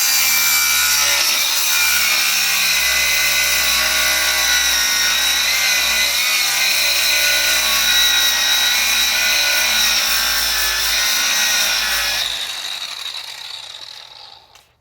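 Dewalt DCG412 cordless 4-1/2-inch angle grinder running at full speed with a steady high whine while its disc grinds against a workpiece. About twelve seconds in it is switched off and the disc spins down over a couple of seconds.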